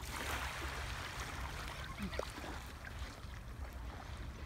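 Seaside ambience: wind rumbling on the microphone over a soft, steady wash of sea water, with a few faint short sounds about two seconds in.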